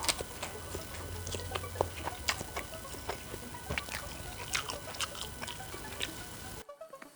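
Close-miked eating of instant noodles: irregular wet smacking clicks and slurps from chewing and slurping.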